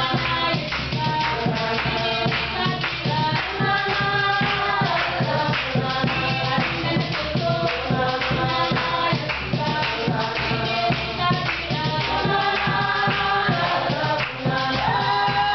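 Church music: a group of voices singing a lively song, with hand percussion keeping a steady beat.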